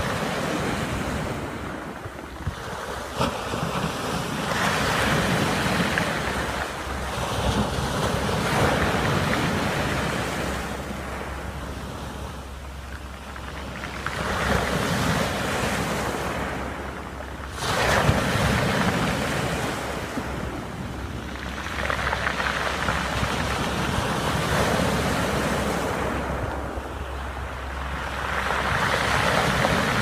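Sea waves breaking and washing up over a pebble beach, the rush swelling and ebbing every few seconds with one sharper surge past the middle. Wind buffets the microphone as a low rumble.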